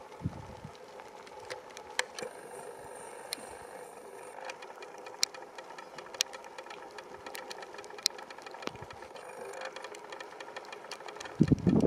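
A steady mechanical hum with many faint, irregular clicks, and a burst of low thumps just before the end.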